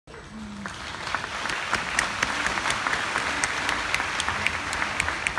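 Audience applause, many hands clapping at once, swelling over the first two seconds and easing slightly near the end.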